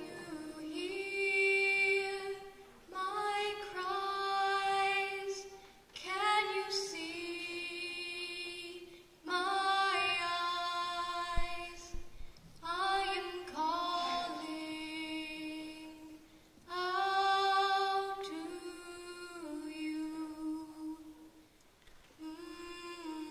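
A teenage girl singing solo and unaccompanied: one voice in short held phrases with brief pauses between them.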